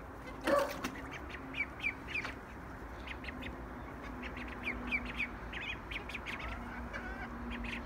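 Ducklings peeping: a steady run of short, high, downward-sliding peeps, a few a second, with one louder call about half a second in.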